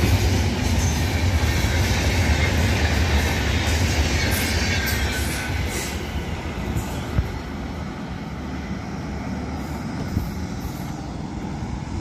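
Intercity Express passenger train running through the station, its coach wheels rumbling on the rails, with a faint falling whine a few seconds in. The noise eases after about six seconds as the last coach draws away.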